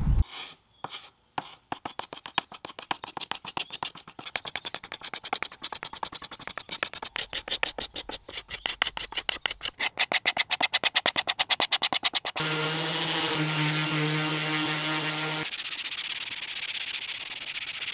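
Hand scraper pulled in quick, rhythmic strokes across a wooden high chair seat, several strokes a second, scraping off the old finish. About twelve seconds in, a steady pitched hum takes over for about three seconds. A sanding block then rubs evenly over the bare wood.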